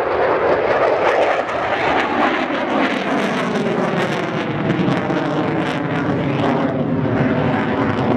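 Eurofighter Typhoon fighter jet climbing steeply on afterburner: a loud, continuous jet noise whose pitch slowly falls.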